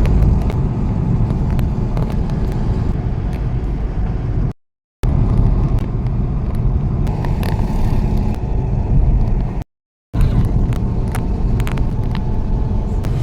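Steady low rumble of a car driving, heard in three stretches, each cut off abruptly with a short silent gap between them.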